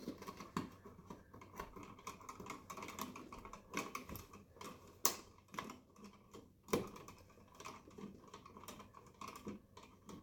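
Irregular small plastic and metal clicks and rustles of hands handling copper ground wires and green grounding wire nuts, with a few sharper clicks about five and seven seconds in.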